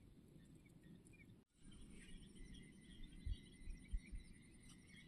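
Faint outdoor ambience with small birds chirping. It drops out briefly about a second and a half in, and a few low thumps follow in the second half.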